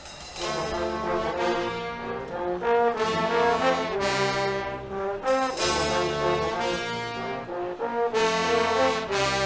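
Guggenmusik brass band playing loud held chords on trumpets, trombones and sousaphones, coming in about half a second in. The chords break off briefly about five and eight seconds in.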